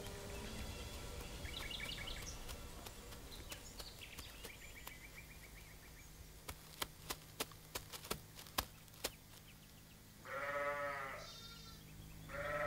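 A sheep bleats once, a wavering call about ten seconds in, and starts another right at the end. Before it there is high chirping, then a run of sharp clicks.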